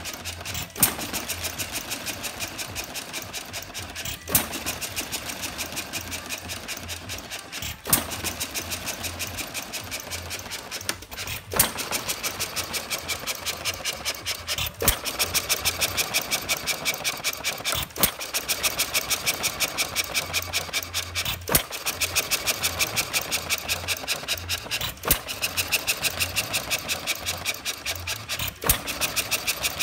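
Ajax sideshaft hit-and-miss gasoline engine running under its governor: it fires with a sharp bang about every three and a half seconds and coasts between firings, with quick, even clicking in between.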